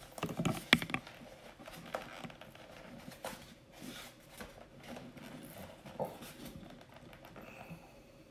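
Small plastic clicks and taps, irregular and loudest in the first second, from hands handling a telemetry sensor's cable and working its connector into a receiver port.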